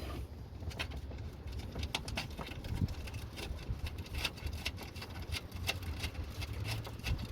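Scattered light clicks and taps of the hood pin switch and its mounting being handled and worked loose, over a steady low rumble.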